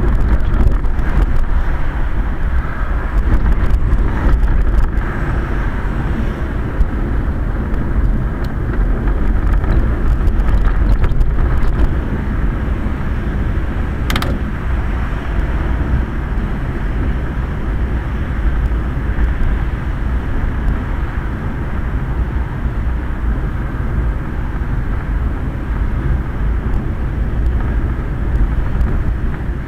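Steady rumbling road and wind noise heard from inside a Quest velomobile's enclosed shell as it rolls along a wet road, with one sharp click about halfway through.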